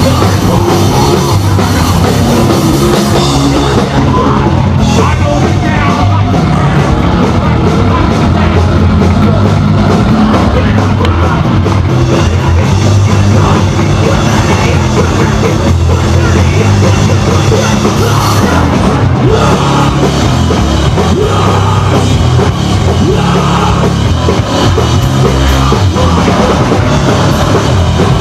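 Hardcore punk band playing live at full volume: distorted electric guitars, bass and a drum kit, with shouted vocals.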